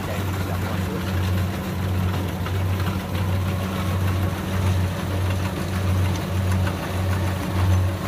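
Kubota DC60 combine harvester's diesel engine running under load as the machine cuts rice, a steady low drone that pulses regularly.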